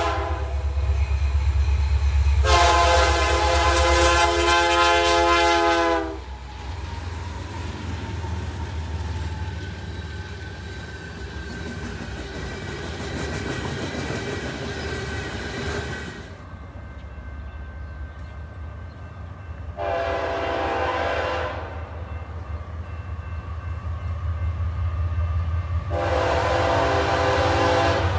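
Diesel freight locomotive's air horn sounding several blasts over the steady low rumble of the train: a long blast a few seconds in, a shorter one about twenty seconds in, and another long one near the end.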